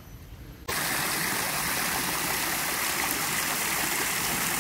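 Water from a rock fountain spilling over its rim and splashing into the basin below: a loud, steady rush that starts abruptly under a second in. Before it, quiet outdoor garden ambience.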